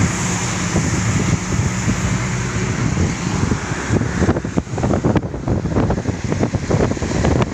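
Wind buffeting the microphone in a fast-moving car, over a steady low road and engine hum. The buffeting turns rougher and more gusty about four seconds in.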